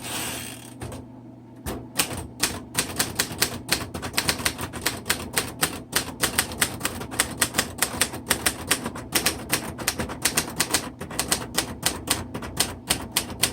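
Typing on a 1960 Royal Heritage manual portable typewriter: a steady run of sharp type-bar strikes, several keystrokes a second, starting about two seconds in.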